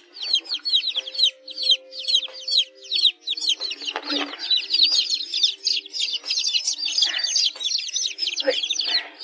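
A group of newly hatched chicks peeping constantly: many short, high, falling chirps overlapping in quick succession.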